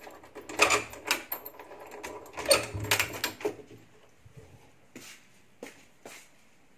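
A door being pushed open, with a run of clattering knocks and rattles for the first few seconds; then only a few faint taps.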